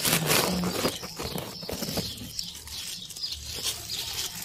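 Rustling of squash leaves and scraping, crackling noises as a knife works through the tough stem of a zucchini, handled close to the microphone, with the loudest rustle at the start.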